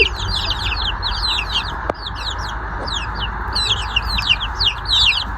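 A box of Brahma chicks peeping constantly, a dense chorus of short, high, falling peeps, with a single sharp click about two seconds in.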